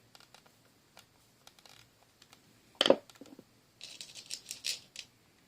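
Small clicks and taps of a screwdriver and hard plastic as the base ring of a Furby Boom is screwed back on. There is one sharp clack about three seconds in, then about a second of scratchy rustling.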